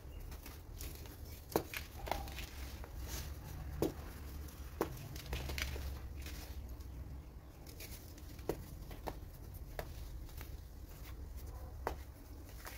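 Hands crushing and crumbling compacted baking soda into loose powder: soft crunching with scattered sharp crackles, a few standing out, over a low steady hum.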